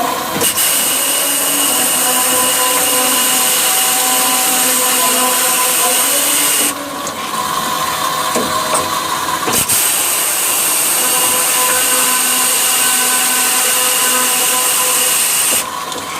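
Metal-cutting machine cutting solid iron bar: its motor runs steadily throughout, and a loud, high-pitched grinding hiss of the blade in the metal fills two stretches of about six seconds each, dropping away for about three seconds between them.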